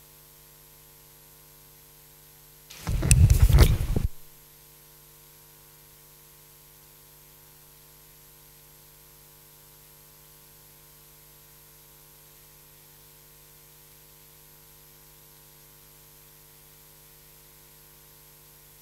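Faint steady electrical hum on the open microphone channel, broken about three seconds in by a loud one-second burst of crackle and rustle: a clip-on microphone being handled while the next speaker is fitted with it.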